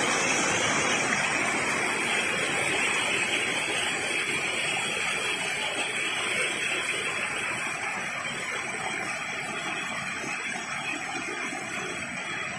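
A small waterfall pouring onto rocks, with the shallow stream below rushing over stones. A steady hiss of water, flowing fairly strongly, that gradually gets a little quieter.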